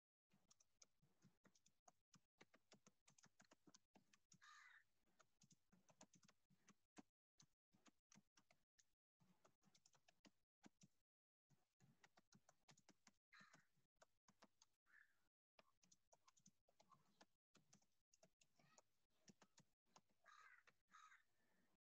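Faint computer keyboard typing: a run of quick key clicks. Several short faint calls sound in the background.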